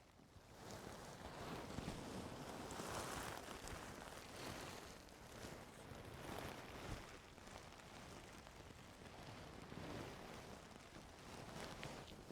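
Ear-cleaning tools rubbing and scraping in a person's ear: a soft rustling, crackling noise with faint ticks that starts about half a second in and swells and fades in waves.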